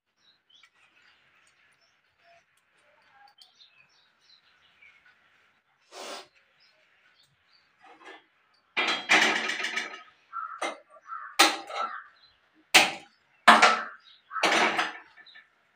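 Steel kitchen utensils clattering and knocking as they are handled and set down on a counter: a single knock about six seconds in, then a longer clatter and a quick series of sharp clanks toward the end.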